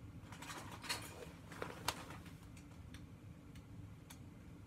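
Faint, scattered clicks and rattles of plastic LEGO Technic beams and pins being handled and fitted together, the sharpest a little under two seconds in.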